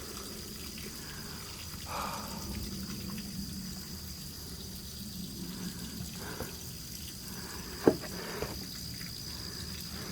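Waterfall reduced to a trickle by drought, water pouring and splashing steadily over rock. A single sharp knock about eight seconds in, with a few fainter knocks around it.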